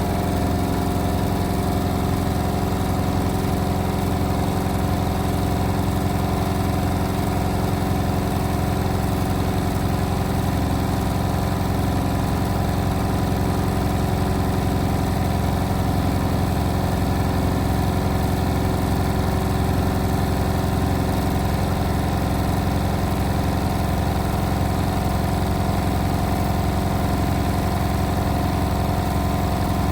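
Indesit WIL143 washing machine on its final spin at up to 1400 rpm: a steady, unchanging mechanical drone with several constant tones. This is the spin in which the owner hears a strange noise.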